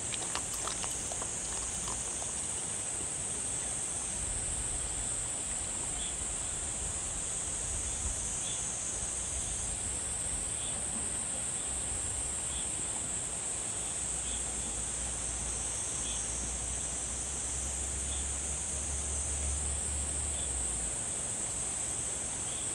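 A steady, high-pitched chorus of insects chirring outdoors, under a low rumble of wind on the microphone. There are a few soft clicks near the start from the dog eating.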